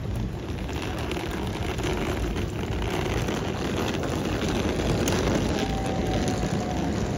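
A train running through the station: a steady rumble that grows louder around the middle, with a thin steady high tone coming in a little after halfway and drifting slightly lower.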